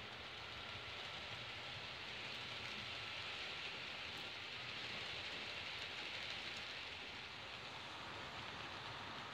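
H0 model trains rolling along the layout's track, a steady rushing hiss that swells a little in the middle as the double-deck train runs past.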